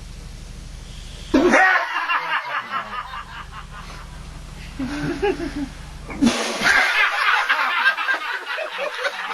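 People laughing in two loud bursts, about a second and a half in and again about six seconds in, with a steady low hum between them.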